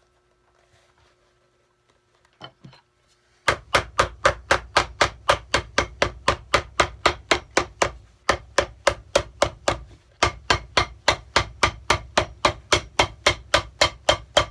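Cobbler's hammer tapping a wetted new leather sole onto a shoe, starting a few seconds in as a fast, even run of sharp knocks, about four to five a second, with two brief pauses.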